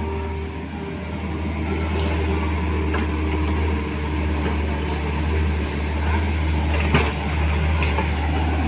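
Excavator's diesel engine running steadily, with a single sharp knock about seven seconds in.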